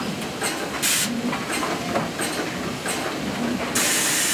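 Industrial feed-through woodworking machine running steadily as a board passes its feed rollers, with a few light clicks. A short loud hiss of air comes about a second in and a longer one near the end.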